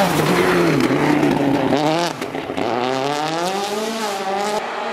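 Citroën DS3 WRC rally car's engine at high revs going past close by, its pitch sinking over the first two seconds, then engine revs climbing steadily as a rally car accelerates hard, levelling off near the end.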